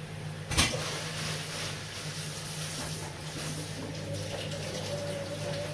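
Water running from a kitchen tap into a steel sink while hands work a fish under it, with one sharp knock about half a second in. A low steady hum sits underneath.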